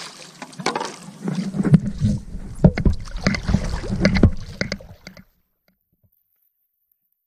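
Paddling on a paddleboard: irregular knocks and water splashing, with deep wind rumble on the microphone. The sound cuts out to complete silence about five seconds in.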